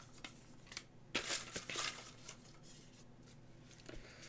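Folded paper slips rustling as a hand rummages through them in a bowl. There is a short burst of rustling about a second in, then faint handling.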